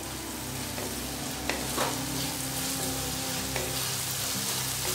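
Onion-tomato spice masala sizzling in oil in a metal kadai while a wooden spatula stirs it, with a few light scrapes of the spatula against the pan. The oil has separated from the masala, so it is frying rather than simmering.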